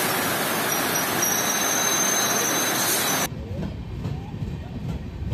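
Heavy rain and a suburban electric multiple-unit train running through a station: a loud, dense hiss with a thin high whine over it. About three seconds in it cuts off abruptly to a much quieter low rumble with a few faint chirps.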